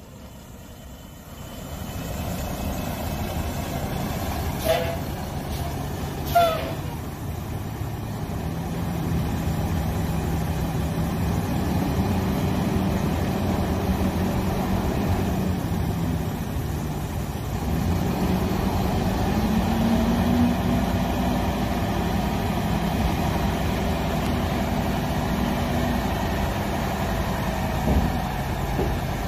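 CAT CT660 dump truck's 12.5-litre Caterpillar CT13 inline-six diesel running with the PTO engaged while the dump body lifts. The engine steps up in speed about 8 seconds in and again around 18 to 20 seconds. Two short sharp chirps sound about 5 and 6.5 seconds in.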